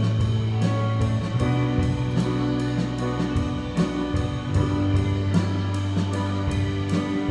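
Live church band music: electric guitars and held low notes over a drum kit keeping a steady beat of about two strokes a second.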